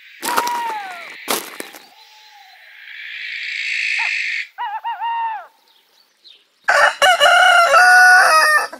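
A short falling cry with a couple of sharp knocks at the start, then a steady high chirring of night insects that swells and stops, and a few short bird chirps. Near the end a rooster crows loudly, one long call held and then falling off: the cue that night has turned to morning.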